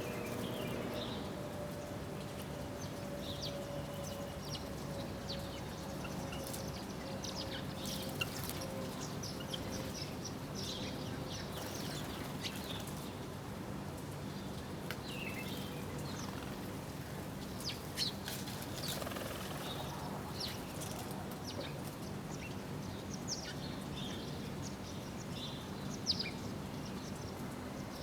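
Small birds chirping: many short, high chirps scattered irregularly over a steady low background hum, with a few sharp taps now and then.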